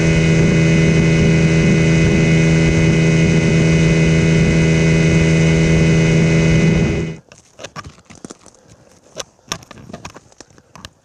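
Boat motor running at a steady speed, then cutting off suddenly about seven seconds in. Faint scattered crackles and rustles follow.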